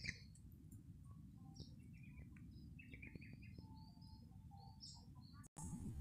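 Faint scattered chirps of small wild birds over a low, steady background rumble, with a brief dropout in the sound near the end.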